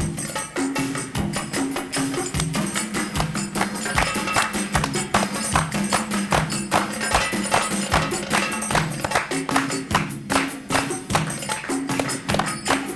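Live band playing upbeat belly dance music: a quick, steady percussion beat over a repeating bass line.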